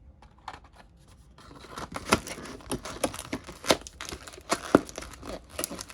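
Crinkling and tearing of trading-card pack wrappers as packs are handled and ripped open, with many sharp crackles. It starts faint and grows busy after about a second and a half.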